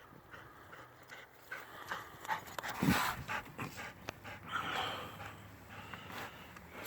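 A Black Lab and Australian Shepherd mix dog panting, in irregular breaths, with a louder burst about three seconds in.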